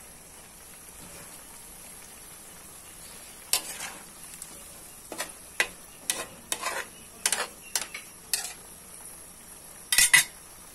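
Metal tongs clinking and scraping against an aluminium wok while quail eggs are stirred into simmering meat and sauce: a run of sharp clicks starting a few seconds in, then two louder clinks near the end, over a faint steady sizzle.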